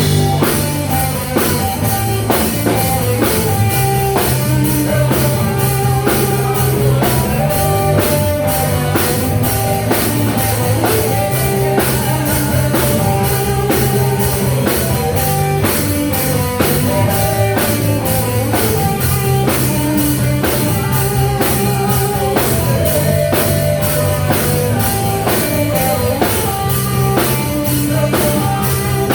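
Live rock band playing, mostly instrumental: a drum kit keeps a steady, even beat under bass and guitar.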